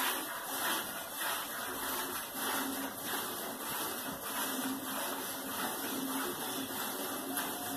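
Hand-milking of a Guzerá cow: streams of milk squirting from the teats in a steady rhythm of soft hissing spurts.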